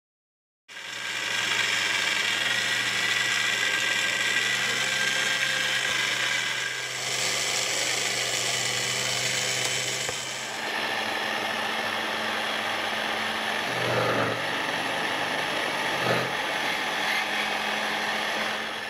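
Bench drill press running steadily with a motor hum, its bit boring into a plastic bottle cap clamped in a machine vise. The sound shifts about ten seconds in, and there are two short louder surges of cutting a few seconds later.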